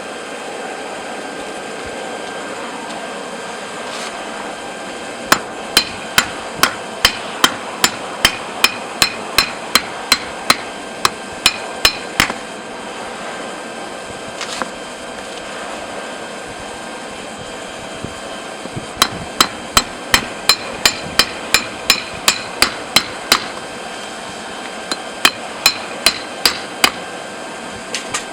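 Hammer striking a hot railroad spike on an anvil to shape the knife's tip: three runs of evenly paced, ringing metal blows, about two to three a second, over a steady hiss.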